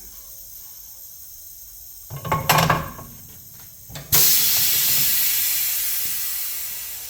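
A clunk of metal being handled, then a sudden loud hiss that starts about four seconds in and slowly fades, from hot metal during heat-straightening of a motorcycle wheel rim.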